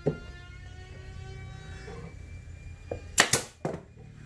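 Pneumatic F-type brad nail gun firing nails into plywood panels: several sharp shots, the loudest a little past three seconds in.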